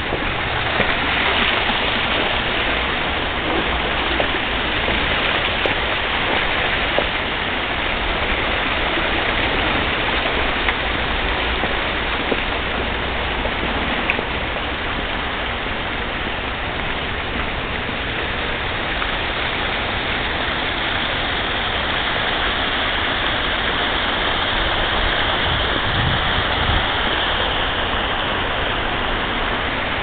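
Steady rush of water falling in a park's walk-through garden waterfall, an even, unbroken splashing.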